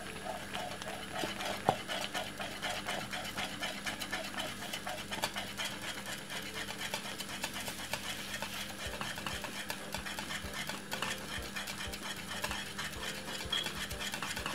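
Wire whisk stirring thick oat porridge in an aluminium saucepan, a steady rhythm of quick wet, squelching strokes, about four a second.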